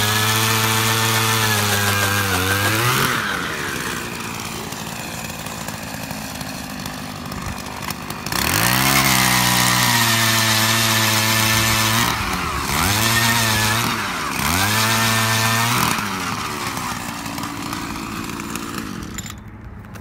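Small two-stroke engine of a gas-powered ice auger boring through lake ice at full throttle. It drops back to idle about three seconds in, revs up hard again around eight seconds, dips twice briefly, then slows back toward idle near the end.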